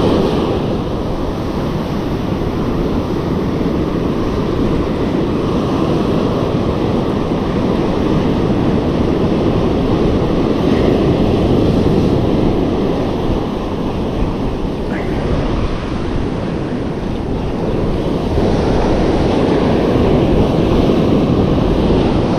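Surf breaking and washing up a sandy beach in a steady rush, with wind buffeting the microphone.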